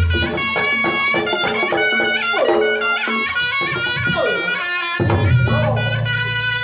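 Reog Ponorogo gamelan music: a reedy slompret melody over kendang drumming and gamelan percussion, with a deep low tone coming back in about five seconds in.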